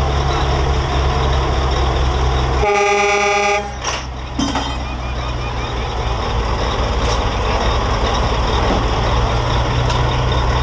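Diesel engine of a Mack semi truck running steadily with a deep rumble, and a horn blast of about a second sounding once about three seconds in.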